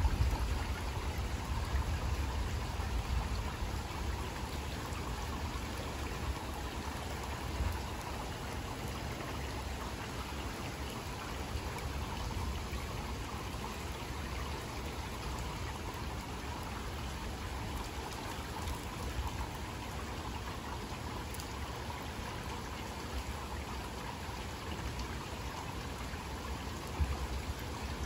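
Steady rain falling, with a low rumble in the first few seconds that fades away.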